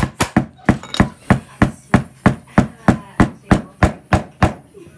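A run of sharp, evenly spaced strikes on a hard surface, about three a second, like chopping or hammering, stopping near the end.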